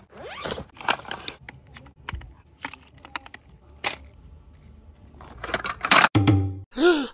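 Camping gear being unloaded and set up: scattered clinks, rattles and scrapes, busiest in the last couple of seconds, with a brief wavering tone just before the end.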